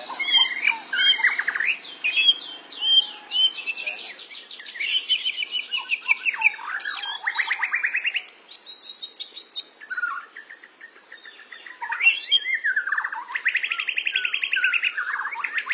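Caged white-rumped shamas (murai batu) singing a varied song of rapid trills, clear whistles and rising and falling glides, with a quieter stretch about two-thirds of the way through.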